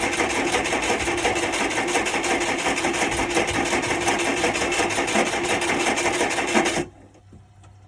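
Boat engine being cranked over by its electric starter, a fast even churning rhythm held for about seven seconds without the engine catching, then cutting off abruptly. This is a start attempt on the freshly cleaned carburettor.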